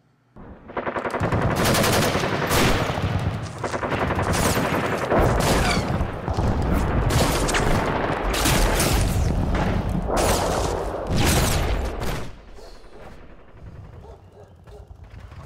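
Video game gunfire: rapid, nearly continuous automatic weapon fire, loud, starting about half a second in and dropping away about twelve seconds in.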